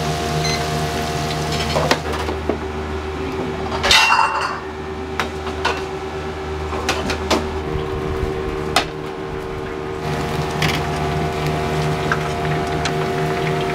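Commercial kitchen clatter: plates and metal utensils clink and knock now and then, with a louder rattle about four seconds in. Under it run a steady mechanical hum and the bubbling of chicken cutlets frying in a deep fryer.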